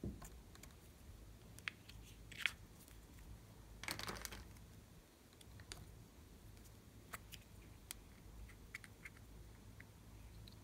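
Faint clicks and light scrapes of small plastic toy cases being handled and opened, with a short scraping rustle about four seconds in.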